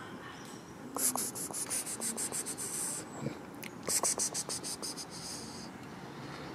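An insect's high, rapidly pulsed buzzing in two bursts of about two seconds each: the first about a second in, the second shortly before the four-second mark.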